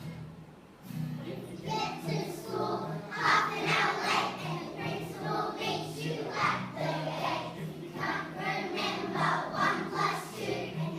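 A group of young children singing a religious song together over a musical backing. The singing pauses briefly at the start and picks up again about a second in.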